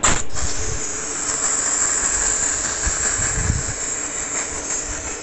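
Dry steam car-wash gun spraying steam: a loud, steady high hiss that starts abruptly as the trigger is pulled and eases slightly near the end.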